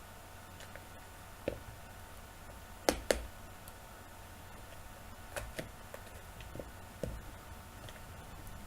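A few short clicks and knocks in a quiet small room, the loudest a pair close together about three seconds in.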